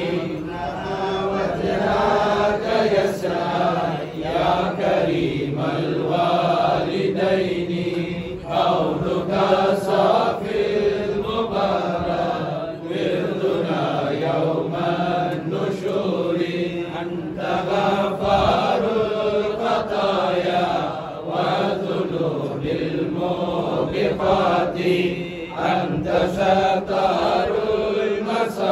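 Men's voices chanting a devotional salam, a standing salutation to the Prophet, in long unbroken sung phrases.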